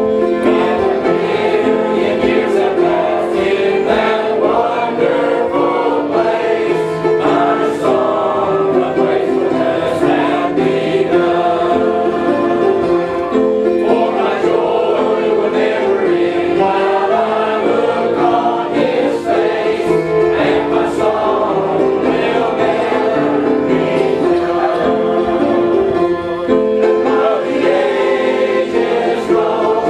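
A group of voices singing a gospel hymn together, with instruments playing along.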